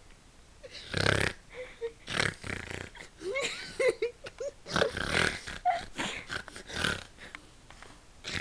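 A person's 'demon snore': a string of harsh, noisy breaths about every second or two, with short squeaky pitched sounds between them about halfway through.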